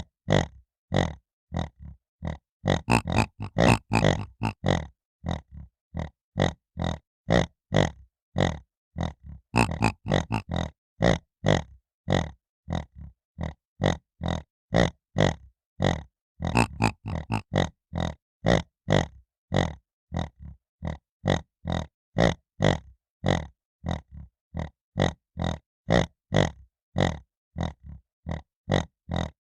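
Piglet grunting: short grunts about two a second, with quicker runs of grunts a few seconds in, around ten seconds and around seventeen seconds.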